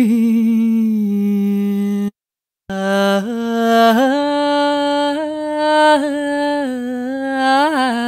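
Persian vocal phrase sample from UVI World Suite's Persian Voices, a singer holding long notes with wavering ornaments. The first phrase cuts off about two seconds in. After a brief silence, a second phrase steps between held notes with small turns.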